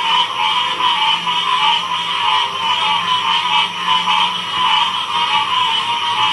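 A dense chorus of many frogs calling at once. It is a continuous, wavering wall of high and mid-pitched calls that never pauses.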